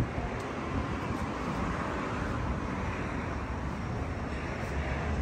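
Steady background noise of distant road traffic, with no distinct event and no engine running nearby.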